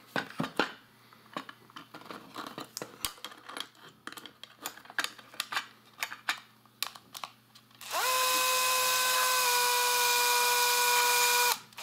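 Light clicks and taps as small plastic parts and screws are handled. About eight seconds in, a cordless screwdriver spins up with a steady whine to drive a screw into a 3D-printed plastic part. Its pitch steps down slightly partway through, and it stops just before the end.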